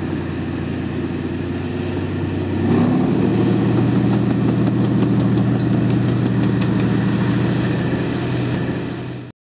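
Tank engine running, then revving up about three seconds in, rising in pitch and growing louder and staying at the higher pitch; the sound cuts off abruptly near the end.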